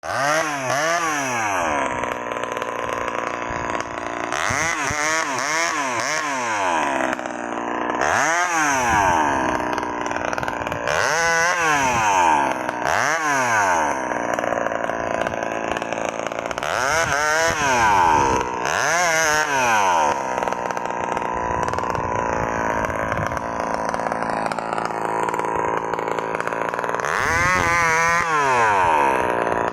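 Two-stroke chainsaw running throughout. Its revs rise and fall again and again, with several quick revs in a row a few seconds in and another rev near the end.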